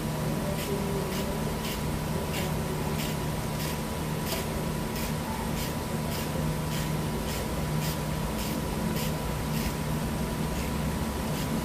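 Steady low workshop hum with soft, evenly spaced ticks nearly twice a second from hand-tool work in a car's engine bay.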